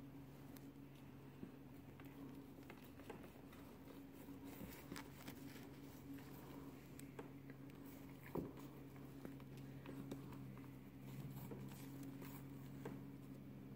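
Faint, scattered light taps and scuffs of a kitten's paws and a rope on a hardwood floor, with one sharper knock a little past halfway, over a steady low hum.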